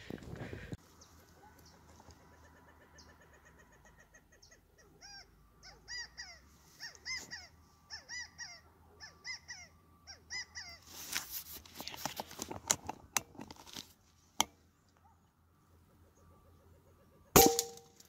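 Quail calling in a run of short, repeated, arched notes. Near the end comes a single sharp crack of the P15 air rifle shot, with a brief ringing tone, as the quail is hit.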